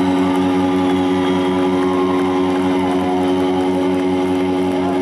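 Live rock band at loud volume through an arena PA: distorted electric guitars and bass hold one sustained chord with the drums underneath, and a few bending notes slide above it.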